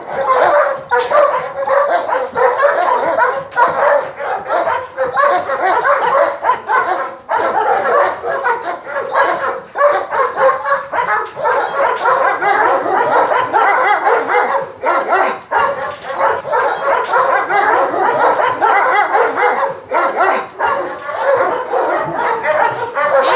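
A kennel of German shepherds barking and yelping all at once, many dogs overlapping in a continuous din.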